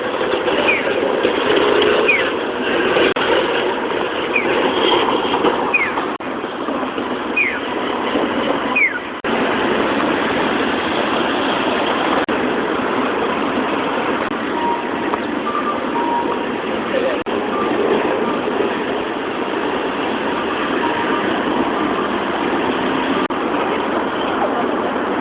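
City street traffic running steadily, with a string of short high falling squeaks over the first nine seconds and a sudden change in the sound about nine seconds in.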